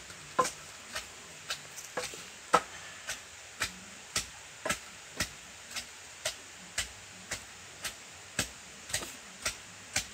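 Green mango pieces and garlic being pounded on a leaf: a sharp knock about twice a second, some strikes harder than others.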